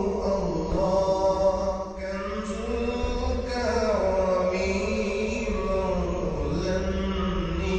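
Background music: a slow, chant-like vocal melody with long held, gliding notes.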